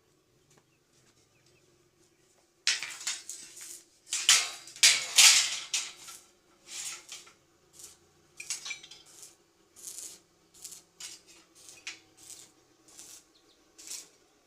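Metal pieces clanking and scraping together in a series of irregular knocks with some ringing, starting a few seconds in and loudest soon after, as steel stock is handled for fabrication.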